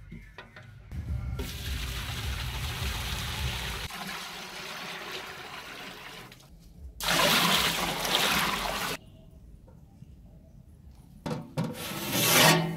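Water poured from a metal jug into a large empty aluminium cooking pot, in a long steady pour and then a louder second pour. A short, louder rush follows near the end.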